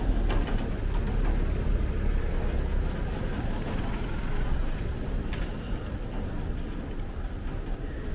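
Slow traffic passing close on a narrow stone-paved street: a small utility truck and cars moving at low speed, a steady low engine rumble with a few brief high squeaks about five seconds in.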